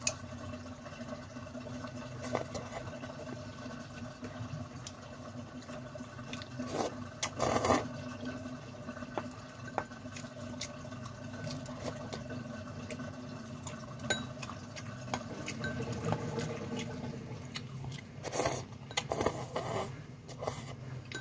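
Noodles being chewed and slurped from a bowl, with wet squishing and small clicks of chopsticks against the bowl; louder slurps come about seven seconds in and again near the end. A steady low hum runs underneath.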